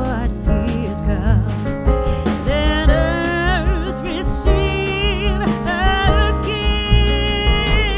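Background song: a singer's voice with vibrato over bass, drums and instruments.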